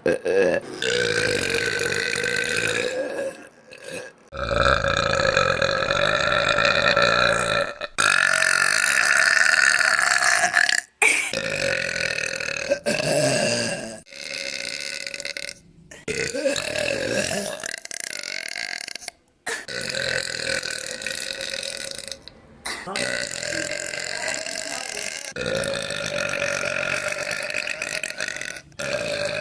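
A girl burping: a string of long, drawn-out burps, each lasting a few seconds, with short breaks between.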